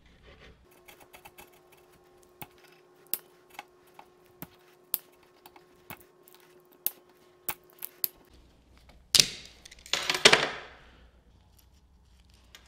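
Sharp, irregular metal clicks as locking pliers grip and twist a part on a bench vise body, about a dozen over several seconds. About nine seconds in comes a sharp knock, then a louder scraping clatter lasting about a second.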